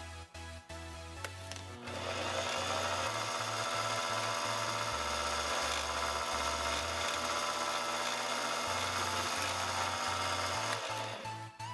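Mini lathe turning aluminum with a carbide tool: a steady cutting noise with a high whine begins about two seconds in and stops about a second before the end, over electronic background music.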